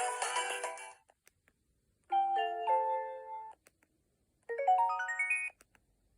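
Preloaded ringtones playing on a ZTE Z331 phone. A busy melody stops about a second in; after a pause comes a short tone of a few stepped notes, and then a quick rising run of notes.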